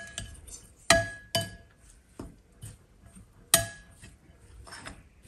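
A metal spoon knocks and scrapes against a glass mixing bowl as cooked rice and flour are stirred together. There are three sharp ringing clinks, about a second in, half a second later, and about three and a half seconds in, with softer taps between.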